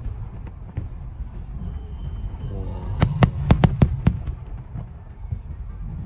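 Aerial fireworks exploding: a few faint cracks, then a quick run of about six sharp cracks about three seconds in, over a steady low rumble.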